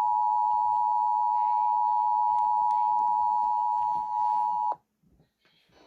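Emergency Alert System attention tone: a loud, steady electronic tone of a few close pitches near 1 kHz, announcing an emergency alert broadcast. It cuts off suddenly about three-quarters of the way in, leaving a brief near silence.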